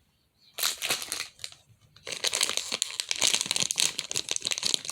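Crinkling and crumpling of packaging being handled. It starts about half a second in and becomes denser and louder from about two seconds in.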